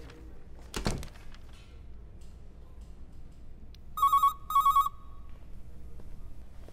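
A phone ringing with a trilling electronic ringtone: two short rings about half a second apart, starting a little past the middle. A single thump comes about a second in.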